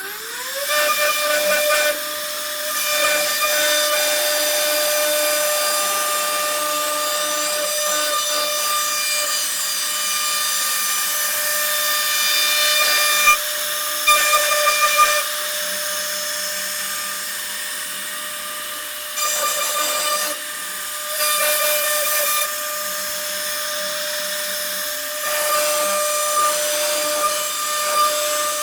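CNC router spindle spinning up right at the start to a steady high whine, with rushing noise that grows and fades in stretches as the bit cuts the profile, likely into wood.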